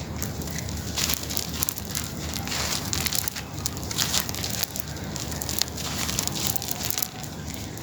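Close-up crumbling of something dry, a dense, irregular crackling and crunching much like a bonfire.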